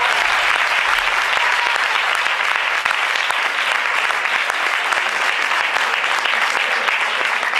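Audience applauding steadily and densely.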